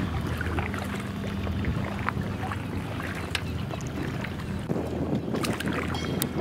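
Wind on the microphone and water noise from a small sailing catamaran under way, with a steady low hum underneath and a few light clicks.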